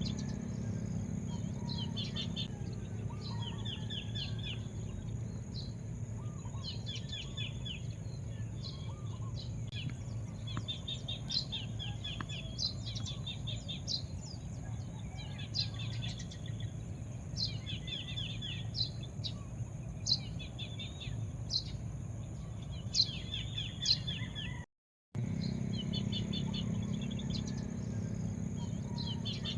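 Wild birds chirping in repeated short, rapid series of high notes, over a steady low background hum and a thin, continuous high-pitched drone. All sound drops out for a moment about 25 seconds in.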